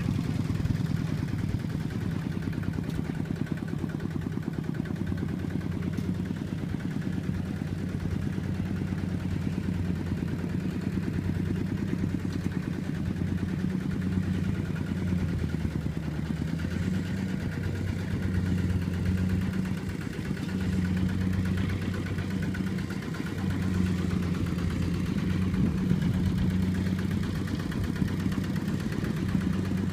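Single-cylinder diesel engine of a two-wheel walking tractor running steadily while pulling a trailer.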